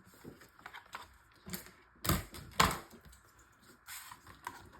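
Craft materials being handled on a work table: scattered light taps and clicks, with two louder knocks about two seconds in, half a second apart.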